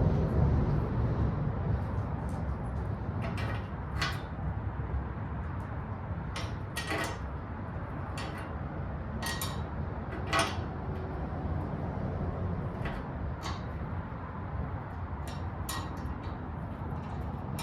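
Scattered metal clinks and knocks of hardware and tools being handled while a lawn mower seat is bolted back on, over a steady low background rumble.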